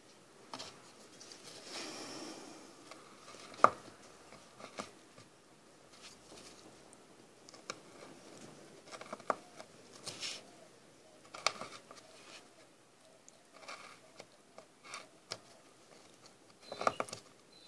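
Hand carving tool cutting into wood: scattered short, quiet scrapes and crisp slicing clicks with pauses between, and one sharper tick about four seconds in.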